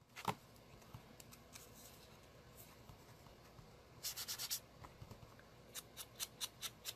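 Sponge dabbing green ink onto a cut card-stock piece: a faint click near the start, a quick run of light taps about four seconds in, then scattered taps near the end.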